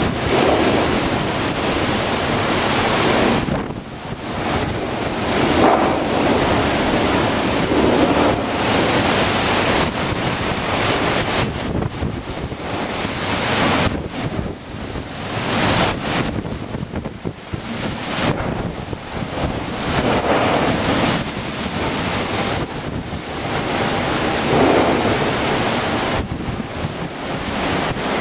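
Hurricane winds and rain blowing in strong gusts, with wind buffeting the microphone. The level swells and drops with each gust.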